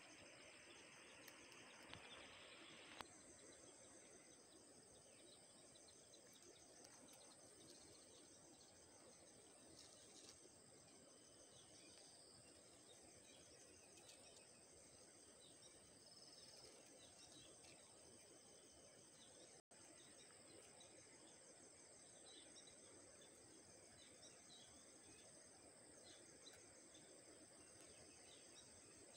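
Faint outdoor ambience: insects trilling steadily in fast, even pulses, with a few faint bird chirps.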